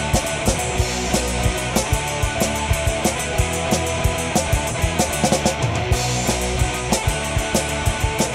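Rock music with a fast, steady drum beat.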